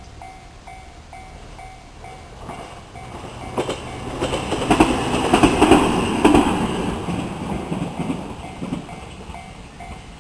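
Japanese level-crossing warning bell ringing in a quick, even, repeating ding while a train passes over the crossing. The train builds from about three seconds in, is loudest around the middle with wheels clattering over the rail joints, and fades away by near the end, while the bell keeps ringing.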